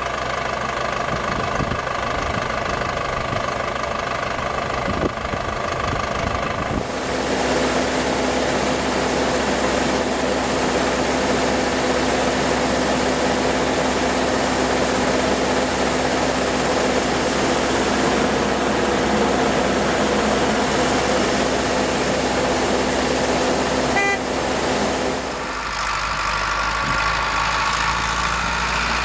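Farm machinery engines running steadily, with a steady whine over the engine noise; the sound changes abruptly about seven seconds in to a noisier, lower hum and changes back near the end.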